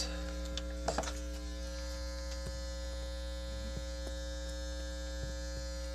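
Steady electrical hum with a buzzy stack of overtones from the audio output of a Bastl Kastle synth patched into a 160-in-1 electronics kit, just after the setup is switched on and grounded. There is a faint click about a second in.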